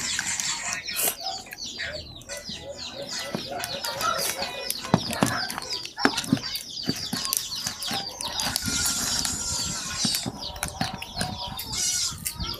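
Chickens clucking, with many quick high chirps that keep on all through, and a few sharp clicks about halfway.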